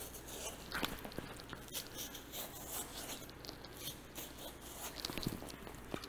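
A 6-inch curved Victorinox knife slicing a thick, dry bison hide away from the carcass, heard as a run of short scratchy cuts and light rips, over a low steady hum.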